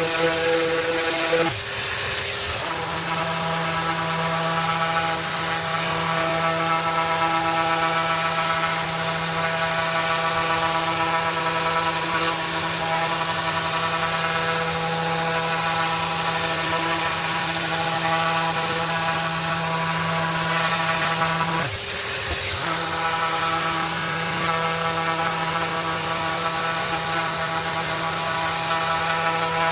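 Maxxt 5 mm-stroke random orbital sander running steadily on a hardwood board, a constant motor hum. It briefly drops and comes back up in pitch twice, about two seconds in and again near twenty-two seconds.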